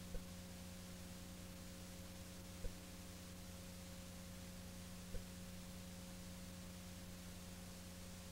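Steady low electrical hum with a faint higher tone over a light hiss, the background noise of an old tape transfer. A short click comes near the start, then two more about two and a half seconds apart.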